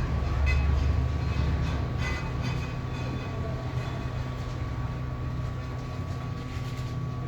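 Hot-air SMD rework station blowing steadily, a constant low hum with a thin whine, while a phone's battery connector is reflowed onto the board; a few faint light clicks in the first couple of seconds.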